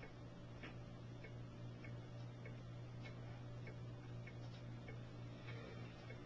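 Faint, regular ticking, a little under two ticks a second, over a steady low hum.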